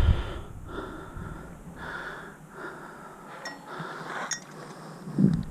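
Mountain biker breathing hard in quick, rhythmic breaths while rolling down a dirt trail, with faint tyre noise and a few light clicks.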